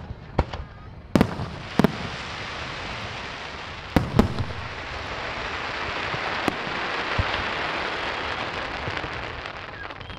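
Fireworks going off: a handful of sharp bangs from bursting shells in the first few seconds, then a long, dense crackling hiss from about three seconds in that fades near the end.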